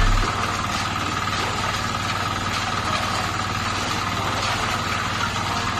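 An engine running steadily, with a low hum and a constant high whine over it.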